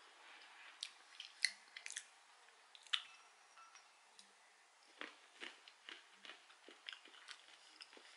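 Faint crunching and chewing of a mouthful of roasted peanuts, a scatter of short crunches.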